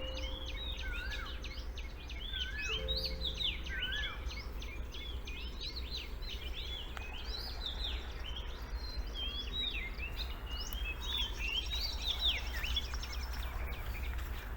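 Songbirds chirping busily: many quick chirps that rise and fall, overlapping throughout, over a steady low rumble.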